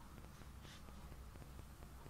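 Near silence: room tone with faint hiss and low hum, and one faint brief rustle about a third of the way in.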